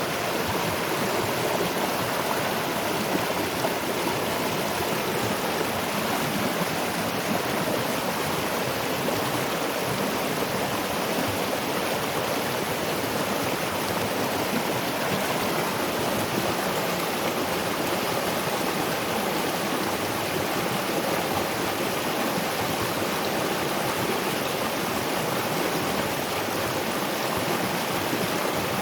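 Waterfall and river water rushing steadily, a continuous even noise with no breaks.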